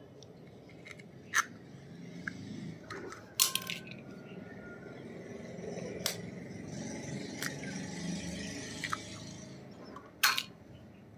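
Steel spoon cracking eggshells and clinking against a glass bowl as two eggs are broken into it: about half a dozen sharp taps and clinks, one of which rings briefly.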